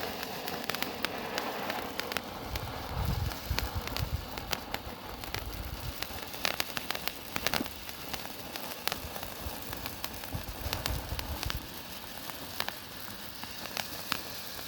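Blue firework fountain burning with a steady hiss and many scattered sharp crackles.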